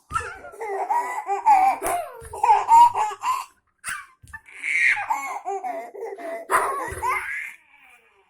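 Baby laughing and babbling in high, squealing bursts, in two long stretches with a short pause about halfway.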